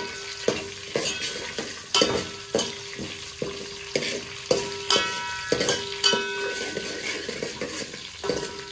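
A steel spoon stirs shallots, garlic and spices frying in oil in a large metal pot. It knocks and scrapes against the pot about once or twice a second, each knock ringing briefly, over a steady sizzle.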